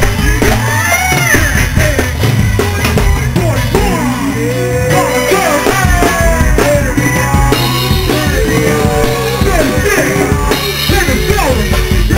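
Live go-go band playing loud: a driving drum and percussion groove with singing over the band.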